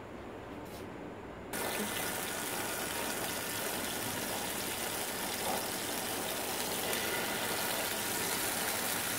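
Marinated chicken pieces sizzling on a hot ridged grill pan. The sizzle starts suddenly about one and a half seconds in, as the chicken goes onto the pan, and then runs on steadily.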